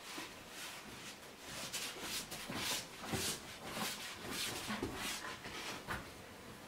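Mascot costume fabric and foam rustling and brushing as the wearer moves up close, a run of short swishes that grows louder about a second and a half in.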